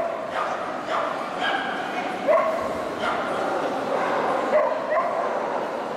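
Several dogs barking and yipping, short calls overlapping several times a second, over the chatter of a crowd.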